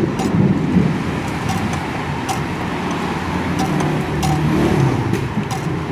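Sharp metallic clicks every half second to a second, from a wrench working the bolt of a homemade puller that is pressing out a piston pin seized from oil starvation. The clicks sit over a steady low rumble.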